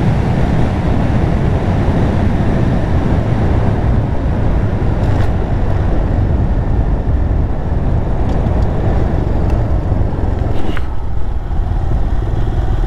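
TVS Raider 125 motorcycle being ridden, its single-cylinder engine running under a steady rush of wind on the microphone. The low rumble thins out about two seconds before the end.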